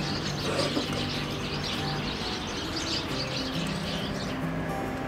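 Small birds chirping busily and repeatedly, which she guesses are sparrows. Quiet background music with low, held notes plays underneath.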